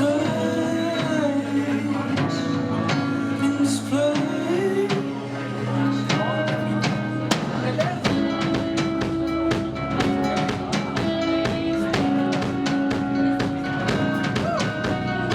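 Live rock band playing in a pub: singing over guitar and drum kit, with the drums growing busier about eight seconds in. The recording is poor, with crappy sound.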